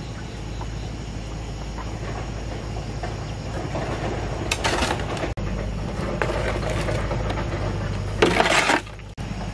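Soil and compost being shovelled from a metal wheelbarrow: two short gritty scrapes, one about halfway through and a louder one near the end, over a steady low hum.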